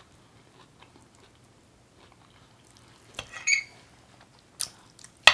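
Close-up eating sounds: a metal fork scraping and clinking against the plate, with a brief ringing about three seconds in. Then a couple of sharp mouth smacks near the end, the last one the loudest.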